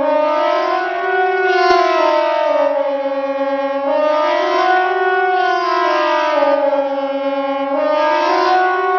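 KTG9 civil-defence siren sounding the Swiss "General Alarm" signal during the annual siren test: a continuous loud tone that rises and falls in pitch, about one slow rise and fall every four seconds, two full cycles in all.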